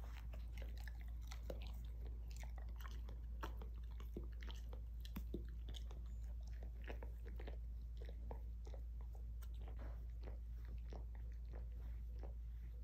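Basset hound chewing and tearing an empty cardboard paper towel tube: irregular crunching and crackling of cardboard between his teeth.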